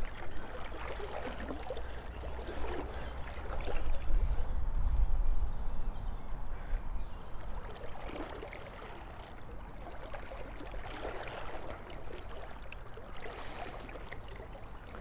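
Shallow river water flowing and lapping gently around a wading angler, with a low rumble that is loudest about four to six seconds in.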